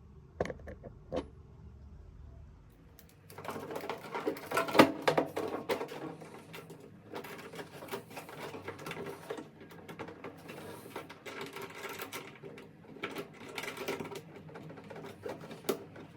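Irregular clicking and clattering of hard parts and tools being handled, after two separate clicks near the start; the clatter sets in about three seconds in and is loudest around five seconds.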